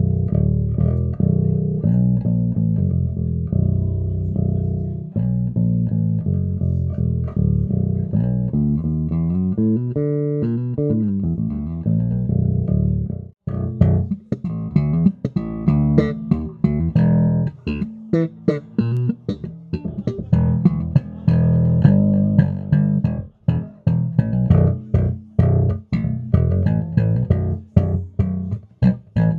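Fujigen FGN NJB100MBAHV ash-body five-string Jazz Bass-style electric bass played solo, first in sustained, ringing notes. About thirteen seconds in, after a brief break, it switches to short, choppy notes with sharp, clicky attacks.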